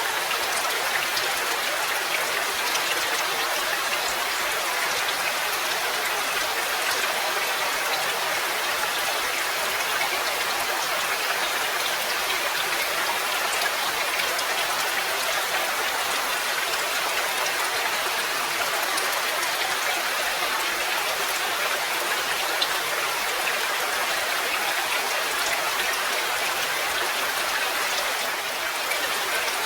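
Steady rain falling, an even hiss of many drops with fine scattered sharper drip ticks.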